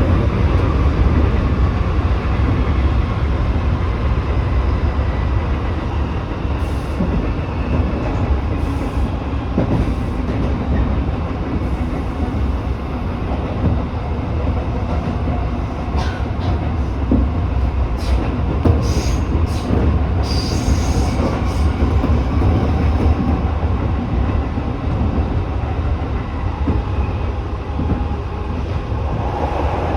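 Tobu 8000-series electric train (set 8111F) running at speed: a steady low rumble of wheels on rail, with scattered clicks over the track and a few brief high wheel squeals about two-thirds of the way through.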